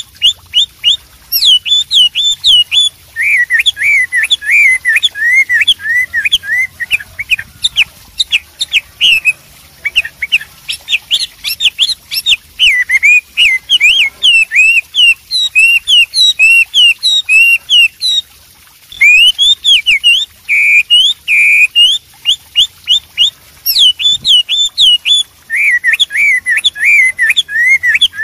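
Chinese hwamei singing loudly: fast, varied runs of whistled notes, with quickly repeated phrases and sharp up-and-down slurs. The song breaks off briefly about two-thirds of the way through, then resumes.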